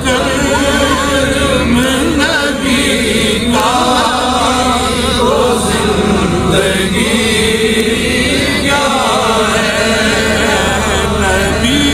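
A man reciting a naat, an Urdu devotional poem in praise of the Prophet Muhammad, chanted in long held notes with wavering, ornamented pitch, over a steady low hum.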